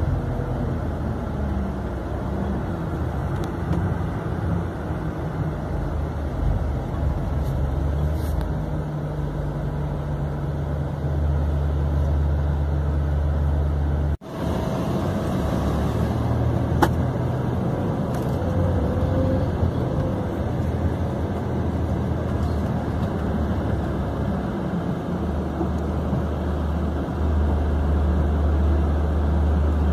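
Coach engine running with steady low rumble and road and cabin noise, heard from inside the moving vehicle. The sound drops out suddenly for a moment about halfway through, and there is one sharp click shortly after.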